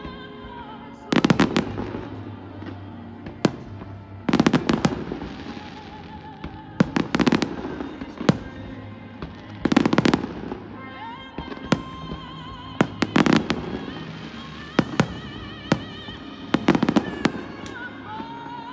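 Fireworks bursting in clusters of sharp bangs and crackles, a new volley about every three seconds, with music playing steadily underneath.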